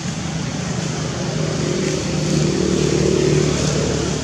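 A motor vehicle engine running steadily, growing louder about two seconds in and easing off near the end.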